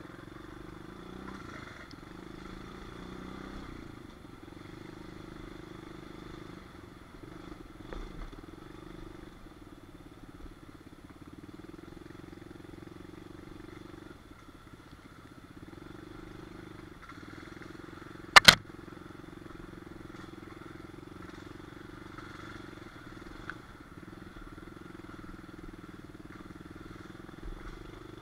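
Small pit bike engine running at a fairly steady pitch while riding a trail, with one loud, sharp knock about two-thirds of the way through.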